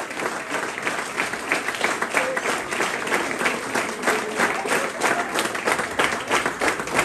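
Crowd applauding: many people clapping in a dense, steady patter, with some voices mixed in.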